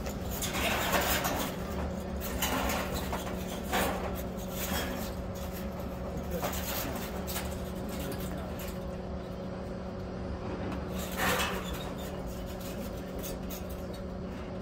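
Metal air-conditioner condenser unit scraping and knocking on asphalt as it is shoved and tipped, in irregular scrapes with louder ones at about 1, 4 and 11 seconds in. Under it runs a steady low hum.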